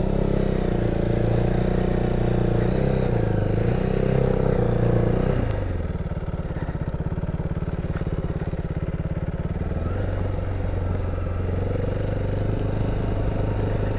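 KTM Duke 390's single-cylinder engine running as the bike rides a dirt track. It holds a steady note under throttle, then drops in pitch and loudness about five seconds in as the throttle is rolled off, leaving a lower pulsing note. The engine picks up slightly again near ten seconds.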